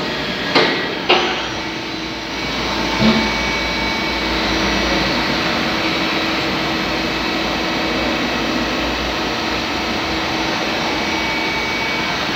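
Makino GF6 CNC milling machine running under test, a steady whirring hum with a few faint steady tones in it. A few sharp clicks come in the first three seconds.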